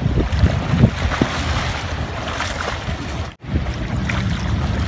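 Wind buffeting the microphone over sea water splashing and lapping around a swimmer, with a few short splashes early on. The sound drops out for a moment a little past halfway, then resumes.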